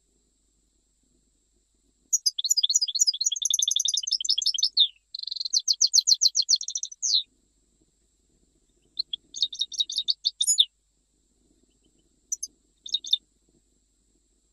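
A Jijel-type European goldfinch singing: after about two seconds, two long runs of rapid, high trilled notes, a shorter trilled phrase about nine seconds in, and a few short notes near the end.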